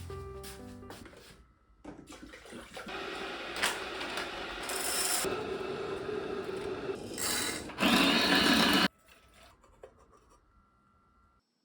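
Continuous rubbing and scraping noise, with a louder rushing sound about eight seconds in that cuts off suddenly.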